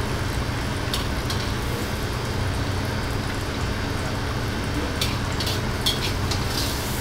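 Vegetables sizzling in a wok over a gas wok range, under a steady rush of burner and kitchen exhaust noise with a low hum. A metal ladle knocks and scrapes against the wok a couple of times about a second in and several times near the end.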